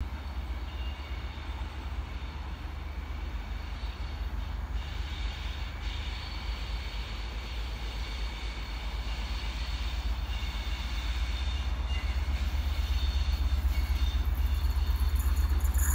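Class 57 diesel locomotive approaching in the distance, its low engine rumble growing steadily louder through the second half.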